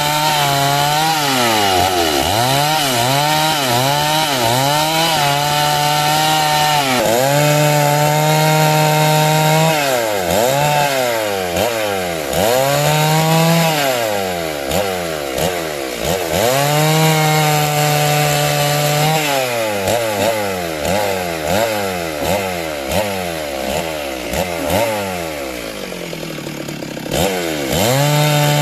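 Stihl two-stroke chainsaw cutting timber at high revs, its engine pitch repeatedly sagging under load as the chain bites and climbing back as it frees. Near the end it drops lower and quieter for a couple of seconds, then revs back up.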